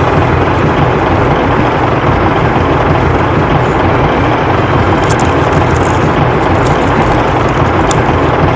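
A loud, steady vehicle engine rumble with no change in pitch.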